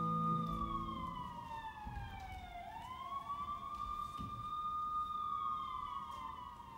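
A siren wailing, its pitch sliding slowly down and back up, then falling again near the end. Held low music notes fade out about a second in.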